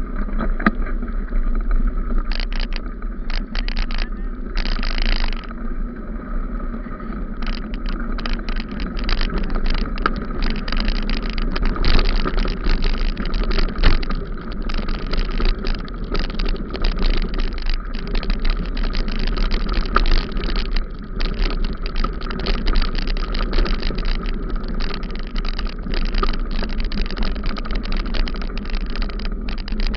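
Bicycle rolling along a rough dirt road, heard from a camera mounted on the bike: a steady low rumble of wind and road noise with constant rattling and knocking as the mount jolts over bumps.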